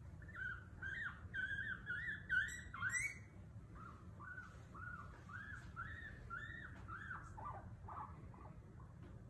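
A small animal giving a run of short, high squeaks that rise and fall, a few a second, louder in the first three seconds and fainter after.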